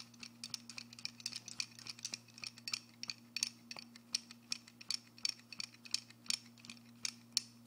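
Bangle bracelets on both wrists clinking together during push-ups: an irregular run of short, sharp clicks, several a second.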